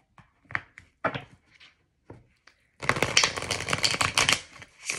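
A deck of divination cards being shuffled by hand: a few scattered card taps and flicks, then from about three seconds in a fast, continuous run of shuffling.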